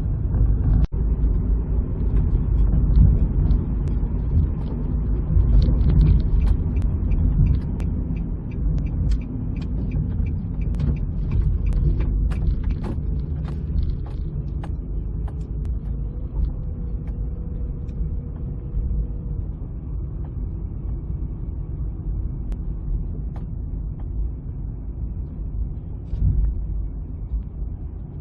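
A car being driven, giving a steady low road-and-engine rumble with scattered small clicks and rattles.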